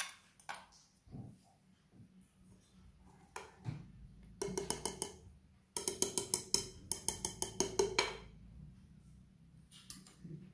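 Wire whisk beating chocolate cake batter in a glass bowl: quick rhythmic strokes, about six a second. A short run comes about four and a half seconds in, then a longer run of about two seconds.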